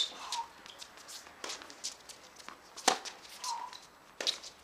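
Tennis balls popping on a hard court, from racket strikes and bounces. The loudest pop comes right at the start and another about three seconds in, with lighter taps between.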